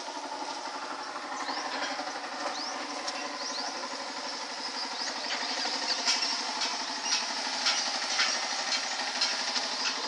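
An engine running steadily with a fast, even pulse, with short high chirps and scattered clicks over it.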